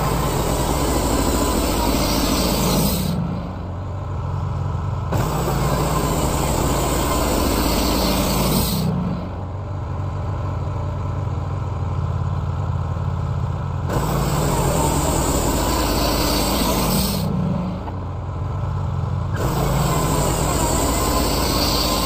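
Wood-Mizer LT15 portable band sawmill running and sawing through a stack of pine boards, with a steady engine hum under the band blade. The sound switches abruptly between louder and quieter stretches every few seconds.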